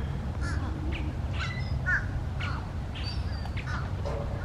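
Birds calling, a string of short harsh calls about twice a second, over a steady low rumble.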